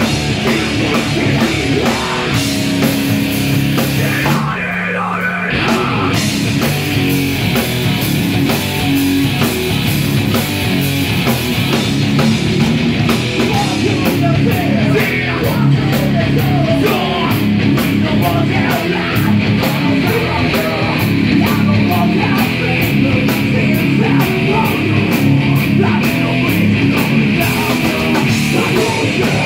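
A heavy rock band playing live and loud: distorted electric guitar, drum kit with steady cymbal hits, and shouted vocals through a microphone. About four seconds in the cymbals drop out for a moment before the full band comes back in.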